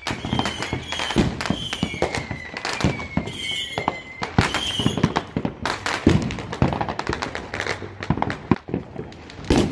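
Fireworks and firecrackers going off all around in rapid, irregular bangs and pops, with high whistling tones among them.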